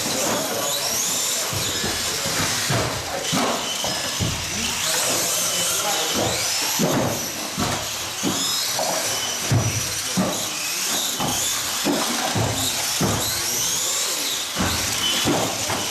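1/18-scale electric off-road RC cars racing on a carpet track: many high motor whines rising and falling as the cars accelerate and brake, with frequent knocks.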